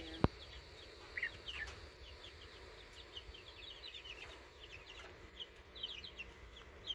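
A flock of young chicks peeping: many short, high cheeps that come more thickly in the second half. A single sharp click comes about a quarter second in, over a low rumble.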